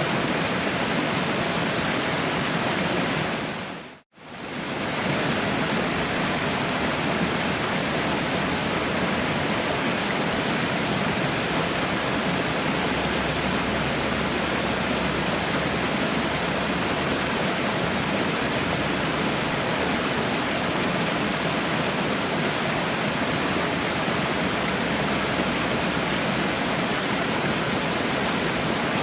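Waterfall rushing steadily, an even wash of falling water, which fades out to a moment's silence about four seconds in and fades straight back.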